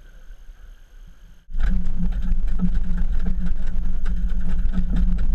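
Boat engine idling with a loud, steady low rumble that starts suddenly about a second and a half in, with small ticks and knocks over it.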